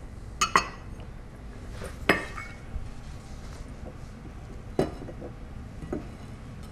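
Cookware clinking and knocking: a frying pan handled on an electric hot plate among glass and ceramic dishes, about five short sharp knocks, a pair about half a second in, one about two seconds in and two more later.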